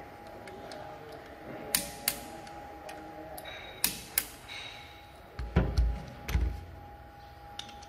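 Hand tools on an engine block's connecting-rod cap bolts: a few sharp metallic clicks of a ratchet and socket, then two dull thuds about two-thirds of the way through as tools are set down on the wooden workbench, over a faint steady hum.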